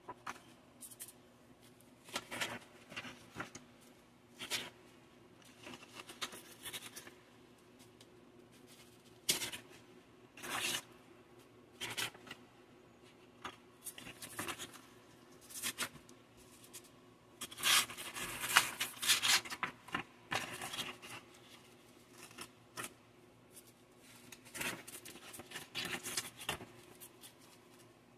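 Sheets of wet/dry aluminium oxide sandpaper rustling and sliding against each other as gloved hands handle and lay them out, in irregular bursts, busiest about two-thirds of the way through.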